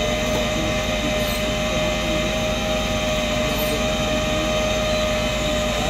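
Flatbed tow truck's engine and hydraulic winch running steadily, with a constant whine over the engine's rumble, as a wrecked car is winched up the tilted bed.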